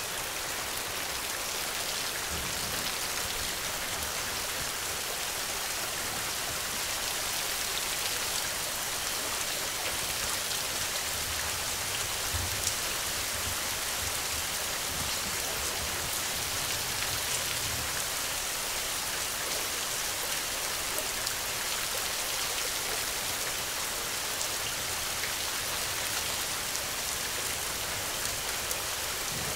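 Steady rain falling, a dense even hiss with individual drops ticking through it, and a faint low rumble a few times.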